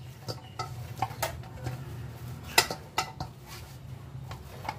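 Stainless steel mixing bowl knocking and clinking at irregular moments as gram-flour dough is kneaded and rolled against it by hand, the loudest knock a little past halfway, over a low steady hum.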